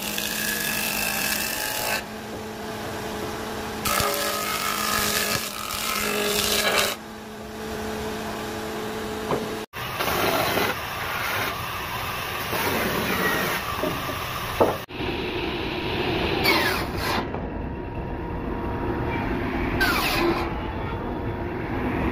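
Woodworking machines cutting willow clefts for cricket bats, in three takes. First a surface planer runs with a steady hum, louder while a cleft is pushed across its cutter. Then a band saw cuts through a cleft, and finally a circular saw runs.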